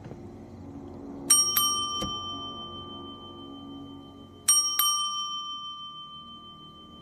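A service bell on a front desk is struck twice in quick succession, then twice more about three seconds later, each ding ringing on and slowly fading: someone is calling for attention at an unattended counter.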